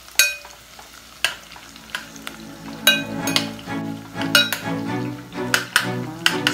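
A metal spoon stirring sizzling garlic and onion in oil in a glass pot, with sharp clinks and scrapes of the spoon against the glass. Background music with a steady pattern comes in about halfway through.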